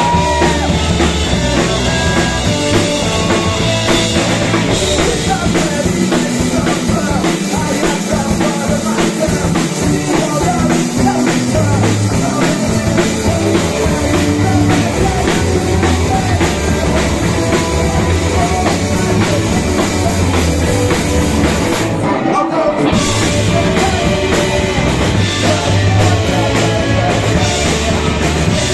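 Punk rock band playing live: electric guitar, bass guitar and drum kit, with a lead singer. About two-thirds of the way through the band stops for a brief moment, then comes straight back in.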